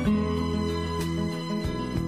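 Instrumental background music, with sustained chords changing about once a second.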